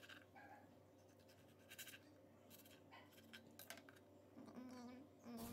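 Faint, short scratches of a knife slicing a tomato on a plastic cutting board, a few strokes spread out.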